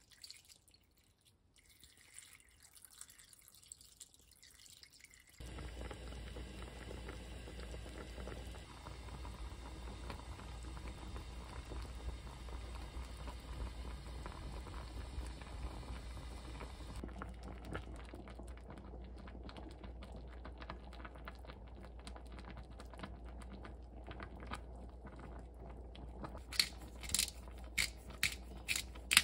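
Vegetable broth poured from a carton into a pot, then the pot heating and simmering on a gas stove with a steady low rumble. Near the end comes a series of sharp ratcheting clicks, a pepper grinder being twisted over the pot.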